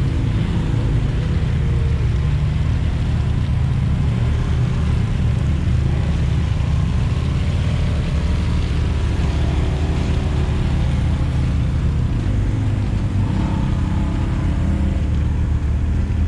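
Side-by-side UTV engines running: a steady low engine note from a machine close by throughout, with other side-by-sides driving past and revving briefly.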